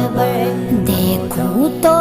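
Background music: a sung Urdu/Hindi devotional song with a vocal melody over steady instrumental backing.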